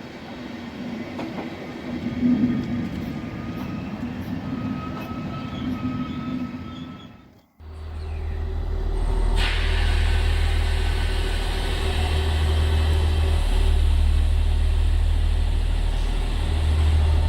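Train sound effects: a train running fades out about halfway through. A second train sound follows at once with a heavy low rumble and a steady hum, and a sharp rush joins it a couple of seconds later.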